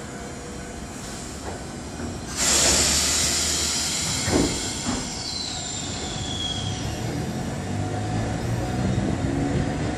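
Randen Mobo 621 tram pulling away: a sudden loud hiss of compressed air about two and a half seconds in that slowly fades, then the whine of its nose-suspended traction motors rising in pitch as it gathers speed.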